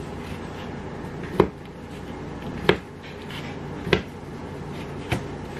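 Chef's knife slicing through a cooked chicken breast and knocking on a plastic cutting board, four sharp knocks a little over a second apart.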